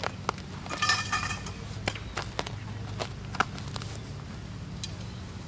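Scattered sharp clicks and knocks from a softball catching drill on a dirt field, with a short high call about a second in, over a steady low hum.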